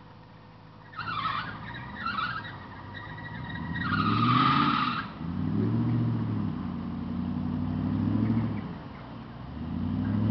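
A V8 4x4's engine revving up and falling back about three times, with short bursts of hiss about a second in and again around four seconds.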